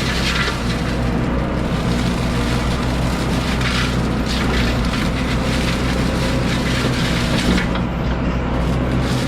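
Excavator engine running steadily under load while a forestry mulcher head grinds brush, with patches of louder shredding and crackling wood every second or two.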